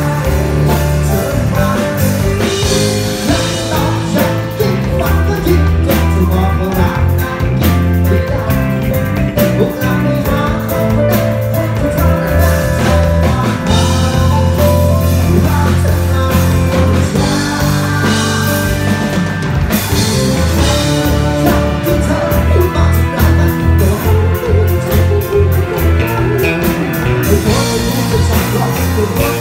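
Live rock band playing on stage: a man singing lead over guitars, with heavy low bass notes and a steady beat underneath.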